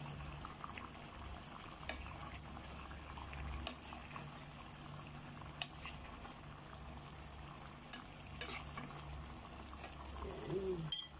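Sweet and sour sauce with fried tuna pieces simmering and sizzling in a pan, with scattered faint pops and a low steady hum underneath. A sharp click near the end.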